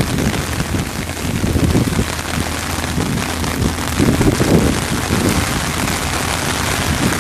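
Steady rain, with low rumbling swells twice, about a second and a half in and again around four and a half seconds in.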